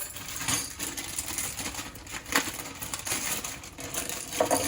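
Small metal Minimoog keyboard bellcranks clinking and rattling against each other as they are handled and dropped into a container. Many light taps, with a denser, louder clatter near the end.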